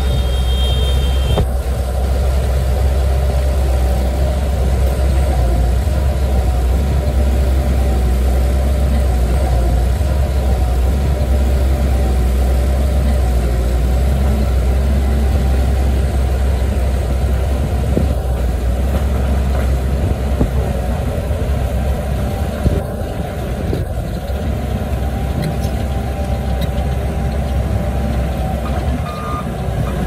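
Bulldozer's diesel engine running steadily under load with a deep rumble.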